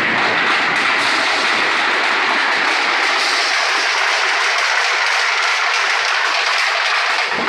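Roofing-sheet roll forming machine running, a steel sheet feeding through its rows of forming rollers: a steady, loud mechanical noise, its low rumble thinning out about halfway through.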